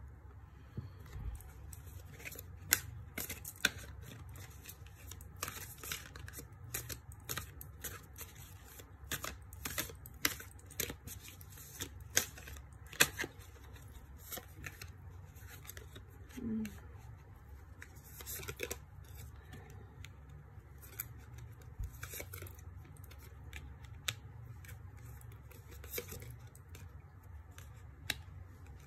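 Tarot cards being shuffled and laid out on a cloth: many short papery snaps and slides of card stock, busiest for the first two-thirds, then only a few.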